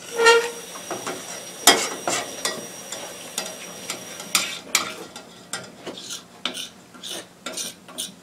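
A metal spoon stirring a thick flour-and-oil roux in a stainless steel saucepan, scraping and clicking against the pan about every half second at an uneven pace, with a faint sizzle as the roux browns.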